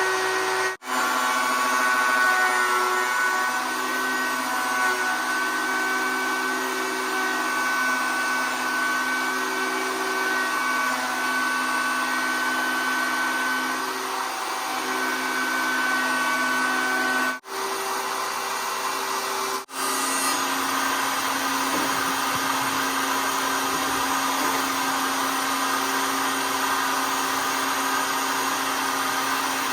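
Router motor running steadily at high speed with a constant whine, broken off abruptly three times for an instant.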